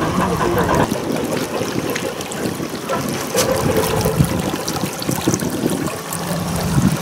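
Water splashing and trickling at the bow of a model steam tug as it moves through calm water, with small irregular ticks over it.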